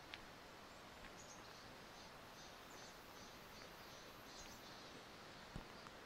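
Near-silent outdoor ambience: a faint steady hiss with a few faint, high bird chirps, and a soft low thump near the end.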